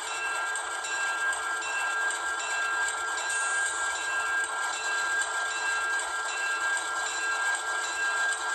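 Rapido MLW M420W model locomotive's sound decoder playing a diesel prime mover idling, thin and without bass through the small onboard speaker, with a pair of steady high tones coming in at the start.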